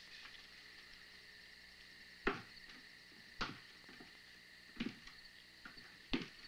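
Four slow footsteps thudding on a wooden floor, one every second or so, the first the loudest, over a steady high chirring of crickets.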